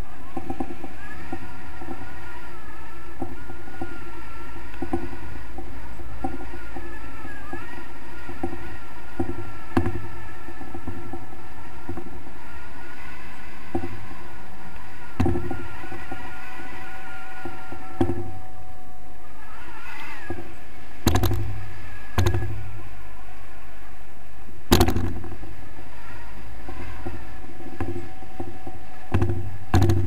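Wind rushing over the microphone in flight under a tandem paraglider, a steady low rumble with a thin wavering whistle, and several sharp knocks in the second half.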